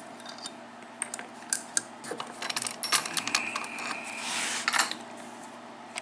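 Small metal clicks and clinks, with a short scraping rub a little past the middle, as the just-picked Manko mortise lock cylinder and the picking tools are handled.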